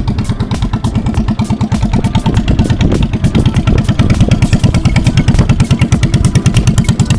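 A combustion engine running steadily at close range, with a rapid even pulse of firing strokes.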